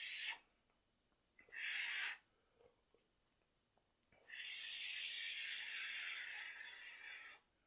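A person's breath rushing hard through the mouth, with no words: a short breath at the start, another about two seconds in, then one long breath lasting about three seconds from around four seconds in, from someone eating very spicy noodles.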